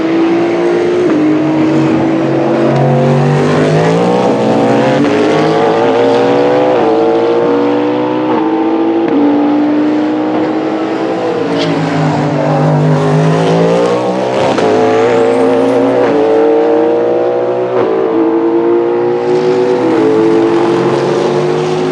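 Endurance race car engines at full throttle, loud and continuous, their pitch climbing and dropping back sharply with each upshift as several cars accelerate in succession. Around the middle the pitch falls away and then climbs again.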